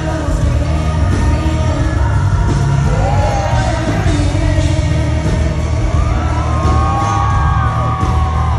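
Live band playing a country song with a woman's lead vocal holding long, gliding notes over heavy bass, with the crowd cheering underneath.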